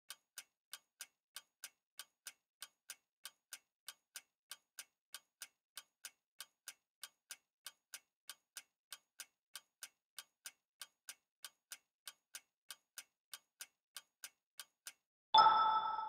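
Quiz countdown-timer sound effect: a clock ticking evenly, about three ticks a second, then near the end a loud, bright chime that rings out and fades, marking the reveal of the correct answer.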